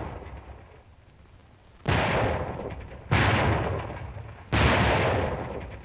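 Artillery fire: three loud booms a little over a second apart, each dying away over about a second, with the tail of an earlier boom fading at the start.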